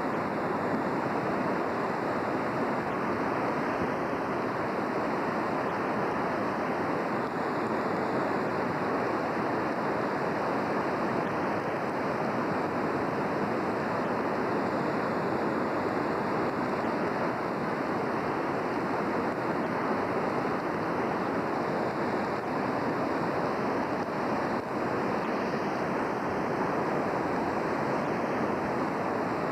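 The North Fork Wilson River in flood, its high fast water rushing in a steady, unbroken roar.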